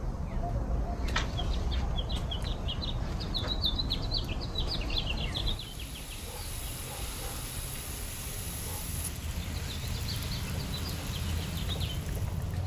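Small birds chirping in quick runs of short high notes, in two spells, over a steady low rumble.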